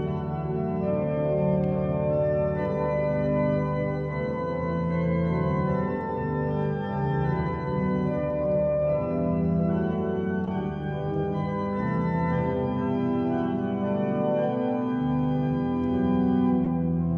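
Three-manual organ playing a hymn tune in sustained full chords, the harmony changing every second or so.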